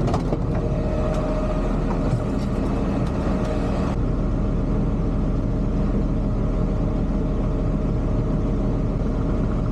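Recycling truck's engine running steadily, with a couple of light clicks in the first moment.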